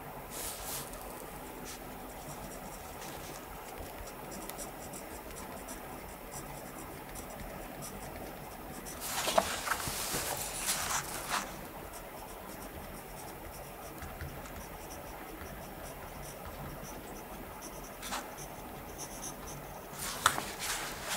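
Pen writing on notebook paper, a soft steady scratching. About nine seconds in comes a louder rustle of cloth for a couple of seconds as a blouse sleeve is pushed up, and another short louder rustle comes near the end.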